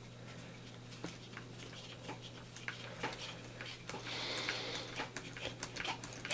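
Faint, scattered clicks and ticks of a small hex driver turning a screw in the metal and plastic chassis of a 1/10-scale RC mud truck, with a short scraping rustle about four seconds in.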